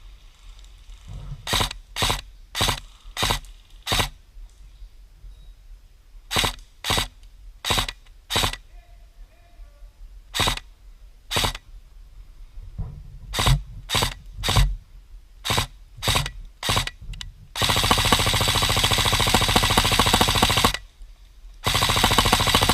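Krytac Kriss Vector airsoft electric gun (AEG) firing semi-automatic single shots in quick strings, then a full-auto burst of about three seconds near the end, a short pause, and a second full-auto burst.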